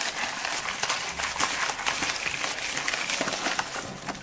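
Plastic packaging crinkling and rustling in the hands: a dense, steady crackle of many small clicks that dies away at the end.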